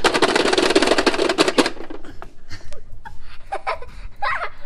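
A rapid run of even ticking from a two-player Pie Face toy game, which stops about a second and a half in. Scattered clicks and knocks follow as the buttons are hit and the hand swings up, with brief child vocal sounds near the end.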